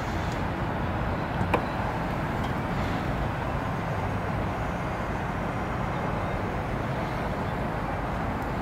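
Power-folding third-row seats of a 2020 Lincoln Aviator lowering: a steady electric motor hum as the seatbacks fold down flat, with a single click about one and a half seconds in.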